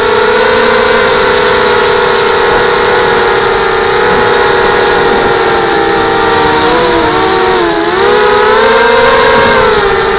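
Blackout Mini H mini quadcopter's Cobra brushless motors spinning Gemfan 5030 propellers, a steady multi-toned whine heard from the onboard camera. About seven seconds in, the pitch dips and wavers, then climbs back as the throttle changes.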